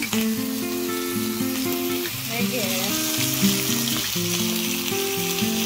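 Steady sizzling from a hot iron sizzler plate, a butter-and-water mixture hissing under the food, with background music of held notes.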